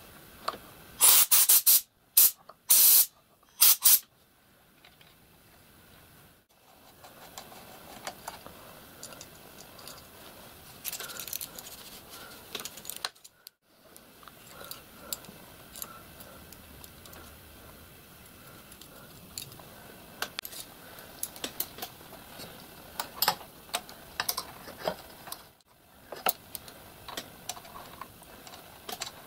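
Several short hissing blasts of air blown through a miniature steam locomotive's brass water valves to clear them out, within the first few seconds. Then scattered small clicks and taps of brass fittings being handled and refitted.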